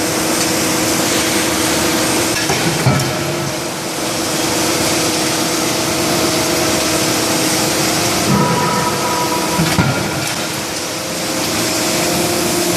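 CNC hydraulic die forging hammer running: a steady hiss and hum from its hydraulics, with a few short knocks, one about three seconds in and a couple near ten seconds in.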